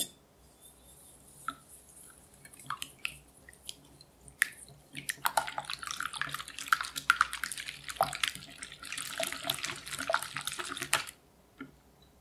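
A wire whisk beating whole eggs and granulated sugar in a glass bowl. At first there are a few scattered taps of the whisk against the glass as the yolks are broken. From about five seconds in comes a fast, steady clatter of wires on glass and wet sloshing, which stops about a second before the end.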